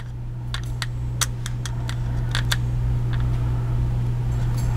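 Small push-buttons on a handheld command box clicking irregularly as they are pressed, over a steady low hum that slowly grows louder.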